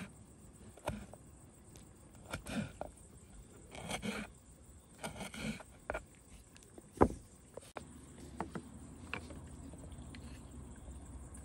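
Cooking utensils scraping and knocking at intervals, with one sharp knock about seven seconds in; a faint steady low noise sets in after it.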